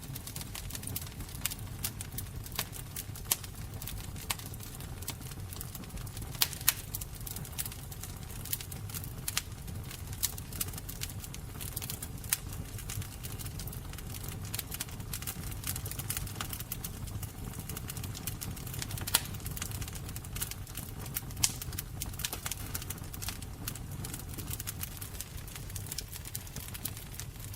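Fire crackling: frequent irregular sharp pops and snaps over a steady low rumble.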